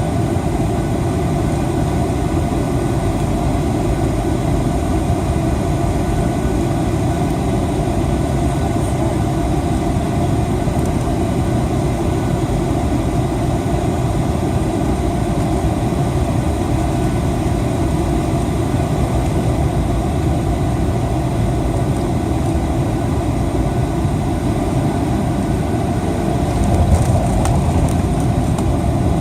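Steady noise of a Boeing 737-800 with its CFM56 jet engines at low power, as during the taxi after landing, with faint steady whines over a low rumble. The level rises briefly near the end.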